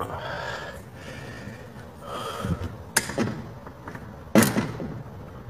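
A person breathing close to the microphone, with handling noise, a sharp click about three seconds in and a louder thump about four and a half seconds in.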